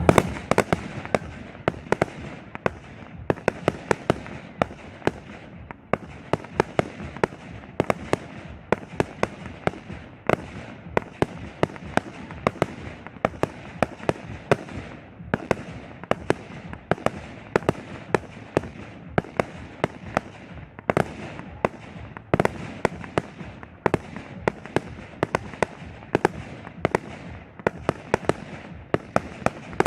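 Professional aerial fireworks display: a dense, continuous run of sharp bangs, several a second, from shells being fired and bursting.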